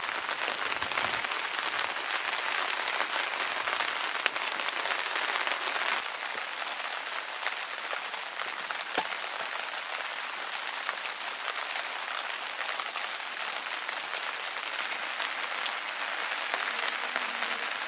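Stormy weather: a steady rushing hiss with scattered sharp ticks, easing slightly about six seconds in.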